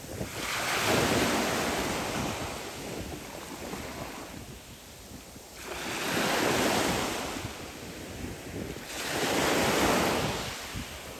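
Small sea waves breaking and washing up a pebble beach. Three surges come in, each swelling and then fading: one just after the start, one about six seconds in, and one about nine seconds in.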